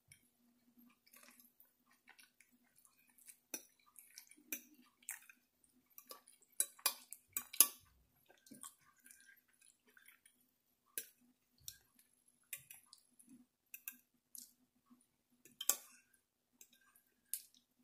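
Metal fork clinking and scraping on a glass plate, with soft chewing between the clicks. The sharpest clinks come about halfway through and again near the end, over a faint steady low hum.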